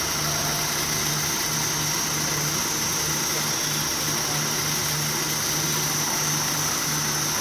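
Breakfast-cereal extruder running steadily while it produces puffed corn pieces: a continuous machine hum with a steady high whine, and a low tone that swells and drops about once a second.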